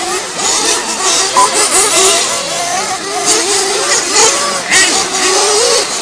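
Several small nitro RC truggy engines revving up and down, their pitch rising and falling, with voices mixed in.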